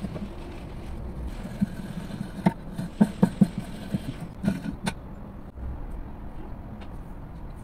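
A quick series of sharp metal clinks and knocks, about a dozen over three seconds, from steel tools handled at a bench vise: the tap, the homemade tap wrench and the vise. A steady low hum runs underneath.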